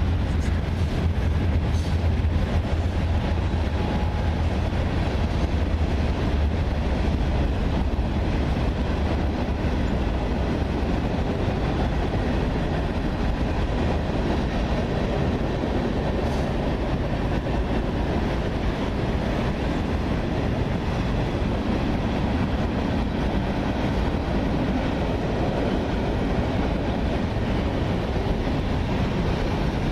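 Indiana & Ohio Railroad freight train rolling past, the wheels of its cars rumbling and clattering steadily on the rails, with a low drone that is strongest in the first several seconds.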